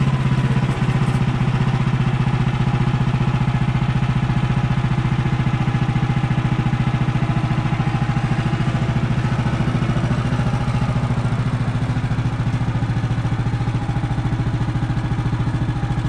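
Woodland Mills HM130MAX band sawmill's gas engine running steadily under load as the blade cuts through a small frozen balsam fir log with no lubrication. The engine holds an even note and is not straining, the sign of a sharp blade.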